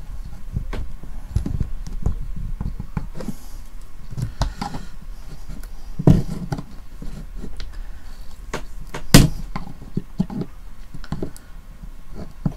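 Screwdriver tip scraping and prying at the plastic case of a digital TV antenna, giving irregular small clicks and knocks. Two louder sharp knocks come about six and nine seconds in.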